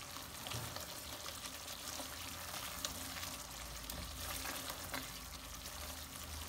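Spatula stirring paneer cubes through thick, simmering masala gravy in a pot: faint wet stirring and sizzling, with a few light ticks against the pot.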